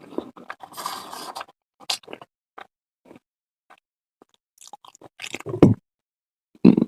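Close-miked mouth sounds of eating: scattered short smacks and clicks, with two louder, lower bursts near the end.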